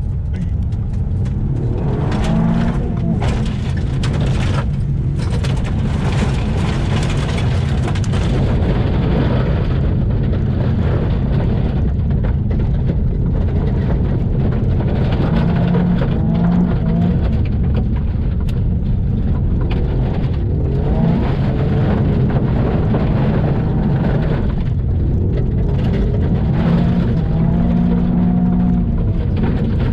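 Toyota GR Yaris's turbocharged three-cylinder engine pulling hard on loose gravel, heard from inside the cabin. The engine pitch climbs again and again as the car accelerates. A heavy rumble of tyres on gravel runs underneath, with frequent clicks of stones striking the underbody.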